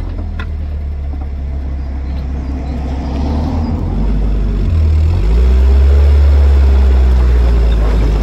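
Ford engine of a replica World War II jeep running as it drives in high gear at low speed. About five seconds in, the engine note rises and gets louder as it picks up speed.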